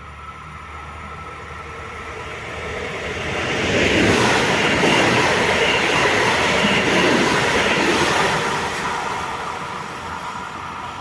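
A train passing along the tracks, growing louder, loudest for several seconds in the middle, then fading as it moves away.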